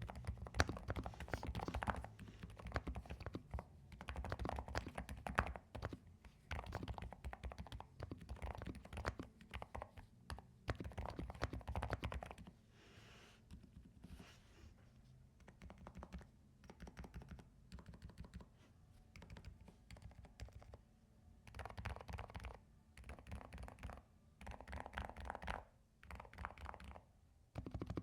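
Typing on a NuPhy Air75 V3 low-profile mechanical keyboard with Blush switches: fast runs of keystrokes, dense for the first half, then sparser and quieter, then two short bursts near the end.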